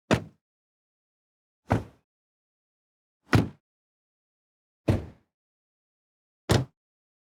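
Car door shut, heard from outside the car: five separate closes about a second and a half apart, each a short thud that dies away quickly, with silence between.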